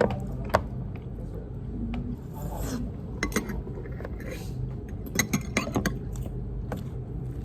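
Scraping and rubbing sounds with scattered sharp clicks and taps, a cluster of them about five to six seconds in, over a steady low hum.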